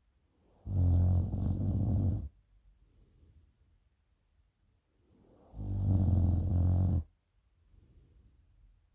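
A person snoring: two loud, low buzzing snores about five seconds apart, each lasting about a second and a half, with faint breaths between them.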